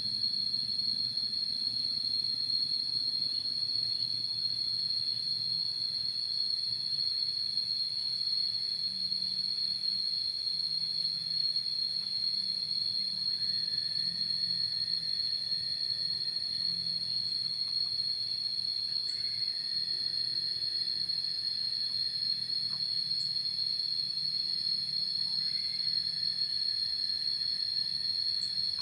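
A steady, shrill insect chorus: a continuous high-pitched drone with no break, joined about halfway through by a second, lower insect tone.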